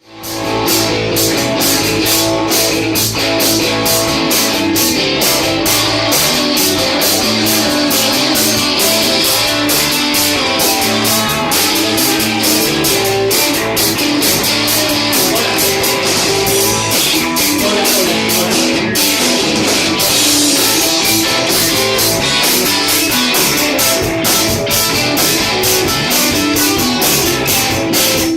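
Rock band playing live, with guitar and drum kit keeping a steady beat.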